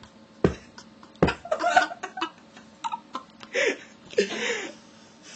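Short bursts of laughter and breathy voice sounds, with a few sharp knocks in the first second or so, two of them loud.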